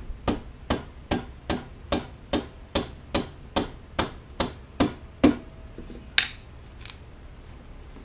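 A mallet tapping the end of a Honda CTX1300's rear axle about thirteen times in a steady rhythm, roughly two and a half blows a second, to drive the axle out for rear wheel removal; the tapping stops about five seconds in, followed by one more knock a second later.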